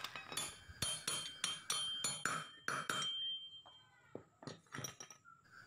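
Hammer tapping a steel T14 T-wrench used as a drift to drive a new bearing into a Yamaha Mio Sporty's CVT pulley. There are about ten sharp metallic taps, roughly three a second, each with a high ringing note, then a few lighter clinks near the end.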